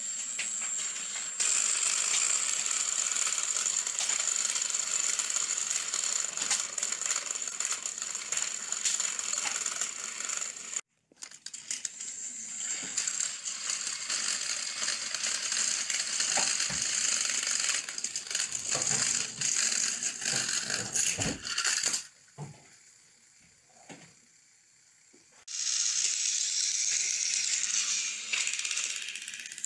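Battery-powered plastic toy trains running on plastic track: small motors whining, with a constant clicking rattle of gears and wheels. The noise drops out briefly twice, the second time for about three seconds near the end.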